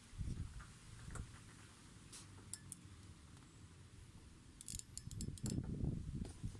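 Scattered small sharp clicks and handling noise from hands and tools working on an MC4 solar connector, with a quick run of clicks a little before five seconds in and heavier handling rumble after it.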